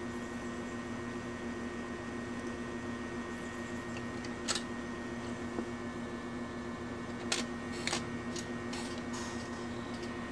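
Steady electrical hum of running bench equipment, a few pitches held constant, with a handful of light clicks and taps: one about four seconds in and a cluster near the end.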